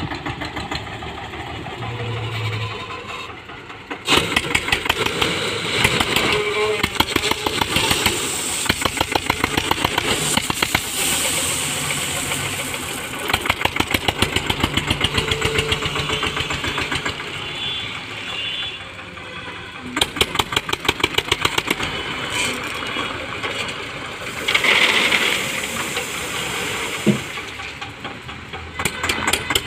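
Eicher 242 tractor's single-cylinder diesel engine running with a rapid, even thumping, its speed rising and falling as the front loader scoops and lifts crushed stone. A load of gravel rattles out of the bucket a few seconds before the end.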